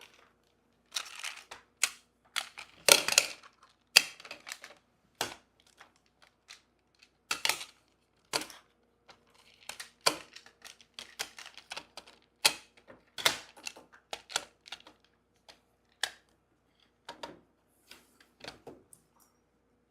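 Plastic magnetic building tiles clicking and clacking as pieces are snapped together and handled: many irregular sharp clicks, some louder than others.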